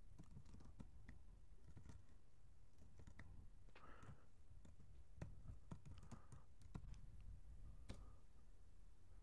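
Faint computer keyboard typing: scattered, irregular key clicks.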